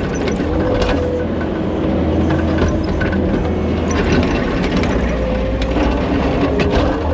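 Diesel engine of a Kubota compact construction machine (track loader or excavator) running steadily under work, with scattered clanks and a faint whine that shifts in pitch.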